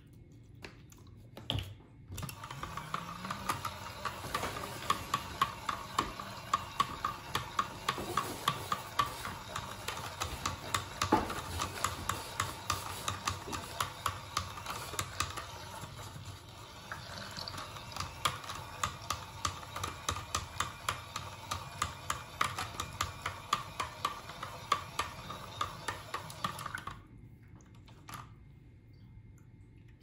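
Mini makeup brush washing machine running a rinse cycle, a small motor spinning water in the tub. It comes on about two seconds in with a short rising whir, runs steadily with a rapid, regular ticking, and cuts off suddenly near the end.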